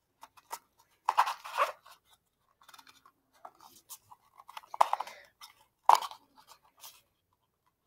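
Plastic packaging crinkling and rustling as it is handled and unwrapped, in several irregular bursts with short pauses between.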